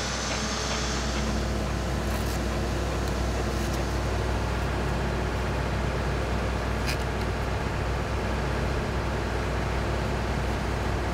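A steady mechanical drone with a low hum, with a few faint clicks.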